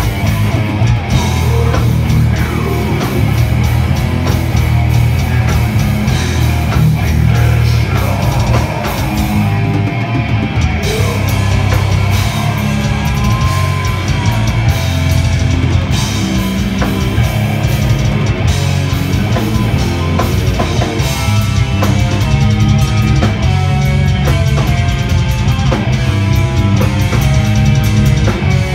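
A metal band playing loud and live: distorted electric guitars, bass guitar and drum kit. From about twenty seconds in the music turns into a choppy, evenly pulsing riff.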